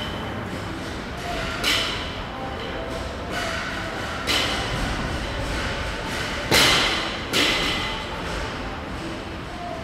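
Barbell loaded with bumper plates hitting a rubber gym floor: four heavy thuds with a short ring, the loudest about two-thirds of the way in and followed closely by another.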